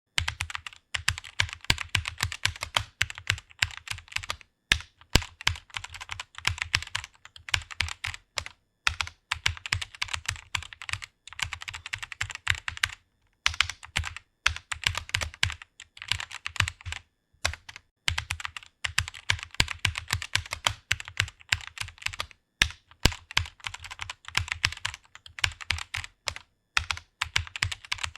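Rapid typing on a computer keyboard: quick runs of keystrokes broken by brief pauses every few seconds.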